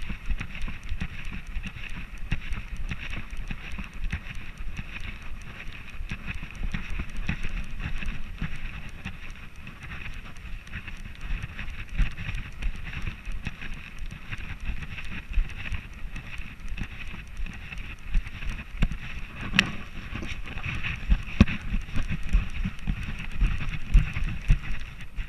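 A camera strapped to a border collie's harness being jostled as the dog moves: many irregular low bumps and rubbing against the mount, with wind on the microphone.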